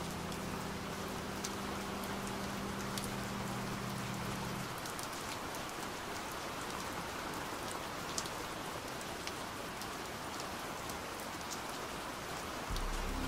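Steady rain with scattered individual drop ticks. A low held musical note fades out about a third of the way in, and a low note comes in again just at the end.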